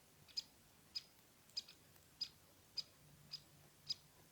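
Woodpeckers calling: a steady series of short, sharp, high-pitched call notes, seven in all, about one every half second.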